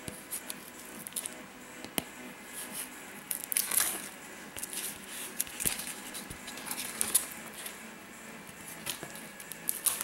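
A knife blade slitting packing tape on a cardboard mailer, with rustling cardboard and crinkling of the comic's plastic bag as it is handled, in scattered clicks and short crackly rustles.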